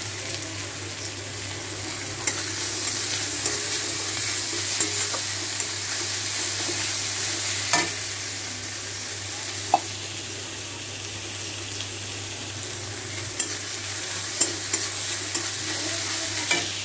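Sliced onions sizzling steadily as they fry in oil in a kadai, stirred with a spatula that clicks and scrapes against the pan now and then, most often near the end.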